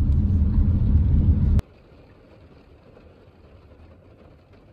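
Low rumble inside a moving car's cabin. It cuts off abruptly about a second and a half in, leaving only a faint steady hiss.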